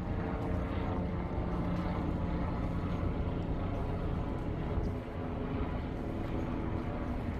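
A steady engine drone: a low rumble with several steady tones over it, easing slightly about five seconds in.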